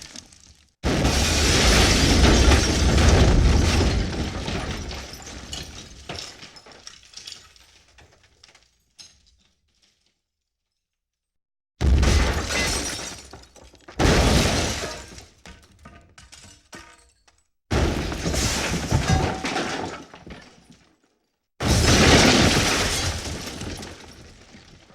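A run of explosion sound effects: five sudden blasts, each with a deep boom and a breaking, shattering tail that dies away. The first trails on for several seconds before a short silence, and the later ones are shorter.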